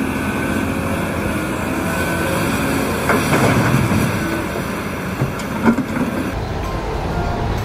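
A steady engine-like rumble from a running vehicle, with a few short knocks about three and six seconds in.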